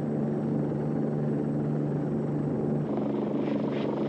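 Helicopter running: a steady low drone with two held tones. About three seconds in it changes to a rougher sound with more hiss, and the lowest tone drops out.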